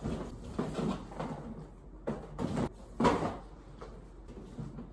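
Someone handling and packing belongings by hand: a run of rustling and short clunks and knocks from clothes, bags and the box, the loudest clunk about three seconds in.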